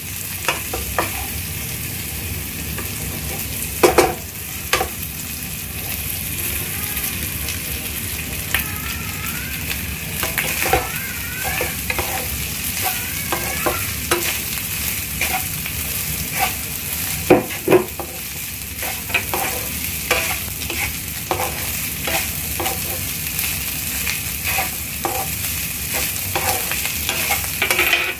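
Chicken, egg and basmati rice sizzling as they are stir-fried in a nonstick frying pan, with a wooden spatula scraping and knocking against the pan now and then; the loudest knocks come about four seconds in and just past the middle.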